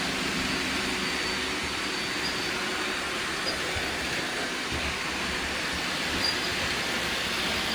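Robot vacuum cleaners running: a steady whir of their suction motors and brushes.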